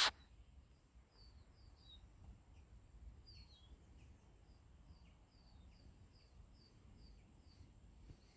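A small songbird singing faintly: a long run of short, high chirps repeated about twice a second. A single loud knock sounds right at the start.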